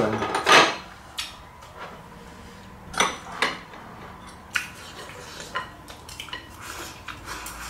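Tableware clinking: chopsticks, spoons and a ladle tapping and scraping against ceramic bowls and plates in scattered single knocks, one of the loudest about three seconds in.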